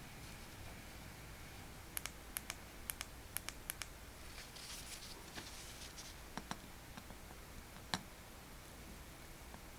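Faint clicks and taps of small objects handled on a workbench: a quick run of sharp clicks a couple of seconds in, a short hiss around the middle, then a few more single clicks.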